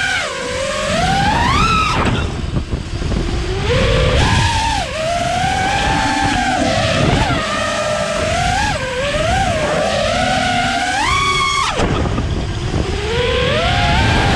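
Brushless motors and Gemfan 51466 props of a 6S FPV quadcopter with Emax ECO II 2306 1700 kV motors, heard from the onboard camera: a whine that rises and falls with the throttle. It climbs steeply near the start and again around eleven seconds in, each time dropping off sharply, over low wind rumble.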